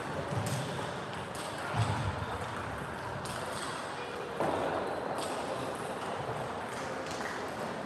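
Table tennis rally: the celluloid-type plastic ball clicking off rubber paddles and the table top several times, over the steady background noise of a large sports hall.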